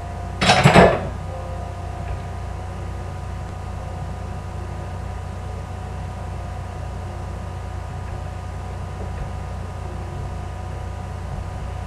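Steady low electrical hum of kitchen appliances with a few faint steady tones, broken about half a second in by one short, loud burst of noise lasting about half a second.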